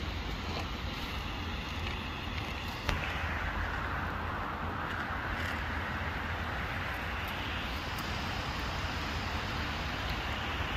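Steady outdoor background noise: a low rumble under an even hiss that swells a little midway, with one brief click about three seconds in.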